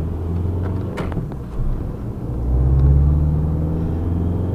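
Car engine and road noise heard from inside the cabin while driving, a steady low hum whose engine note grows louder for about a second midway. A single sharp click about a second in.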